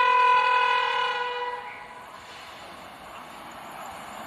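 Locomotive horn sounding a long single-note blast that fades out about a second and a half in, then the rising rumble of an approaching express train on the rails.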